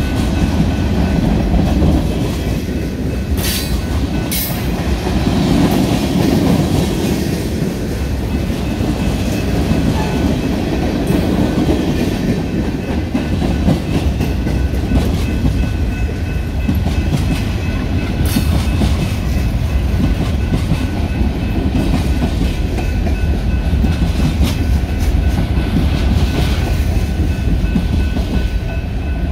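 Freight train's cars (tank cars, covered hoppers and boxcars) rolling past, a steady heavy rumble of steel wheels with clickety-clack over the rail joints. A few sharp clanks stand out, about three to four seconds in and again near the middle.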